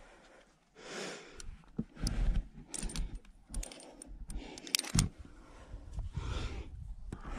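Climbing hardware on a harness clinking and jangling, in a few quick bunches of metallic clicks, between a climber's breaths.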